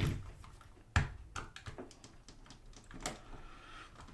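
Small clicks and taps of a screwdriver and hands on a digital camera's plastic housing while working at screws that won't come out. One sharper click about a second in, then lighter clicks and scraping.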